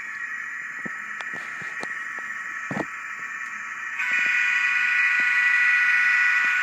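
MRC sound decoder in a Bachmann GP38-2 model diesel playing its engine sound through a small, thin-sounding speaker, with a few light clicks. About four seconds in, a louder steady multi-tone blast of the decoder's horn starts and is held.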